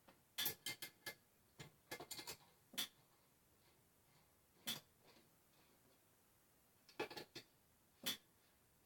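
Sharp metal clicks and clinks in scattered clusters, from handling and fitting a ceiling fan's metal mounting bracket and its screws.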